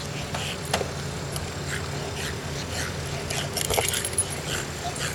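Honda EU16i inverter generator running inside a soundproof box: a steady low hum, with faint short high blips and a few clicks over it.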